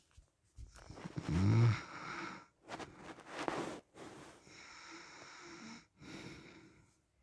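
A sleeping man breathing between snores. About a second in there is a short, softer snort with a rumble in it. It is followed by a few quieter, wheezy breaths in and out.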